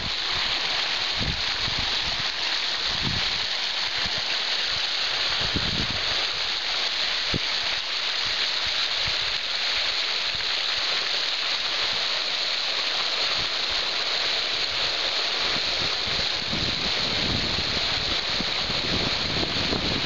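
Fast stream water rushing and spilling over a water-filled flood barrier, a steady hiss of flowing water. Wind buffets the microphone with irregular low thumps, mostly in the first half and near the end.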